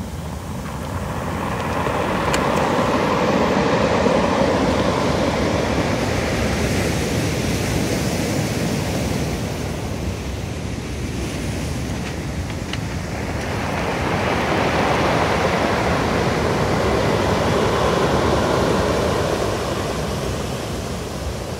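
Ocean surf washing up a beach of rounded cobbles and raking back over the stones. Two waves come in, each swelling and dying away over several seconds, the second arriving about halfway through.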